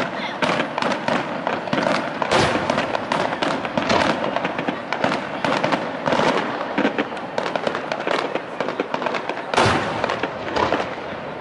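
Aerial firework shells bursting in quick succession, with dense rapid crackling and two heavier booms, one about two seconds in and one near the end.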